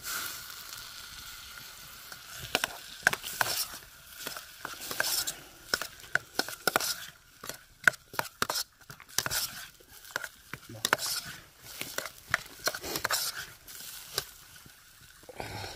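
Potatoes frying in a pan, a spatula scraping and clicking against the metal at an irregular pace as they are stirred, over a steady sizzle.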